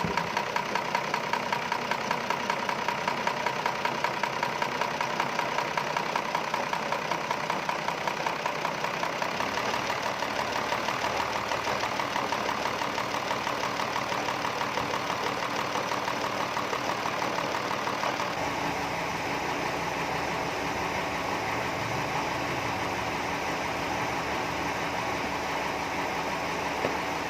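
Engine-driven sawmill band saw running steadily, with a rapid even pulsing beat at first that gives way to a smoother, steadier running sound about two-thirds of the way through.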